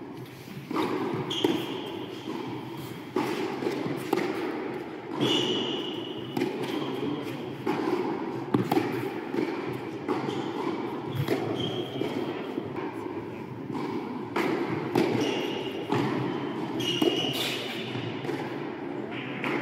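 Tennis practice rally: racket strokes on the ball every second or two, alternating between near and far ends of the court, with short high shoe squeaks on the hard court. A murmur of spectators' voices runs under it, echoing in a large hall.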